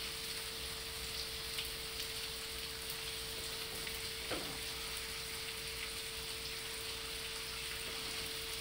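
Food sizzling steadily in a frying pan, with a faint constant hum underneath and a single light tap about four seconds in.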